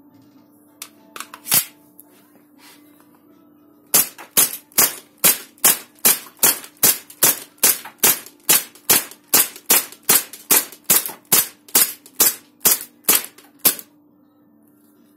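KSC/KWA USP gas blowback airsoft pistol firing about two dozen shots in steady semi-auto succession, roughly two and a half a second, after a few handling clicks as it is loaded. The slide stays locked back on the empty magazine after the last shot, held by the new CNC aluminium slide catch.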